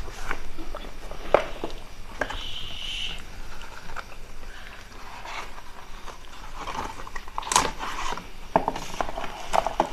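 Cardboard smartphone retail boxes being handled and opened by hand: scattered taps, knocks and the rub of card on card, with a short scraping slide about two seconds in and sharper knocks now and then.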